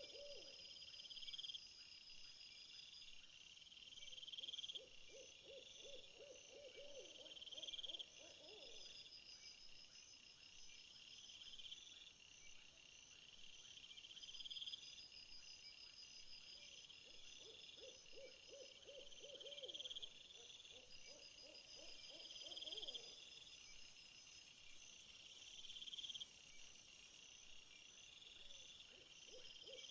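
Faint night-time insect chorus of crickets or katydids, one rising chirp about every two seconds, with a denser high buzz joining for several seconds past the middle. Over it, a low quavering trill from an animal comes and goes three or four times.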